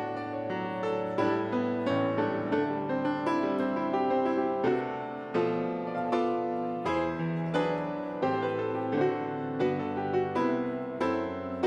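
Piano playing a chordal piece, with new notes struck about once or twice a second over held bass notes.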